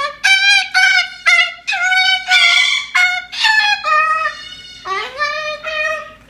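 Moluccan cockatoo singing: a string of short, high, wavering sung syllables, about two a second, with a longer note that swoops up at its start about five seconds in.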